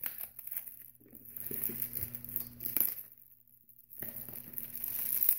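Aluminium foil wrapping crinkling as hands press and peel it, in uneven bursts with a pause of about a second past the middle, growing louder near the end.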